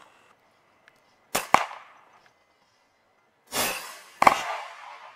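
PCP air rifle shots: two sharp cracks close together about a second and a half in, then two more, the first about three and a half seconds in and the second just over half a second after it.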